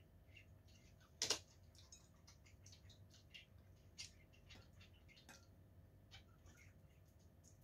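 Quiet eating sounds: faint scattered clicks and taps, among them a fork tapping in a ceramic bowl, with one sharper click about a second in.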